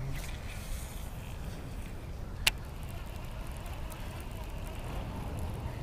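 Wind rumbling on the microphone, with a single sharp click about two and a half seconds in.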